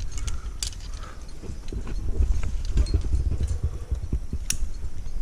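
Low rumbling handling noise on a climber's head-mounted action camera, with short scrapes and a few sharp clinks of climbing gear. The clearest clink comes about four and a half seconds in.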